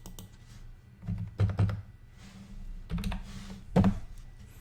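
Computer keyboard being typed on: short clusters of keystrokes and clicks, over a low steady hum.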